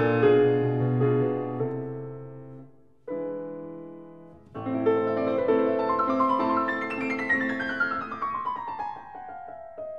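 Background piano music: chords ring and die away, then a new phrase starts with a falling run of notes.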